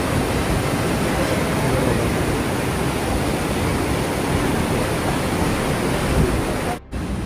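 Stream water rushing down a small cascade over boulders, a steady rushing noise that breaks off abruptly for a moment near the end.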